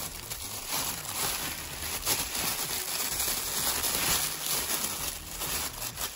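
Tissue paper being handled and pulled about inside a shoe box, rustling and crinkling in a continuous run of small crackles.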